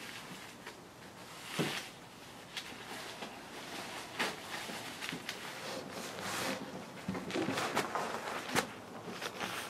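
A stack of tissue paper rustling and crinkling as it is folded back and forth into accordion pleats and creased flat by hand, with a few sharper rustles.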